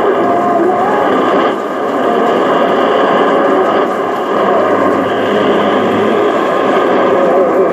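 Yaesu FRG-8800 shortwave receiver tuned near 10140 kHz, putting out a steady garbled jumble of static and faint wavering tones: intermodulation products of Chinese shortwave broadcasts. The tuning is nudged a little as it plays.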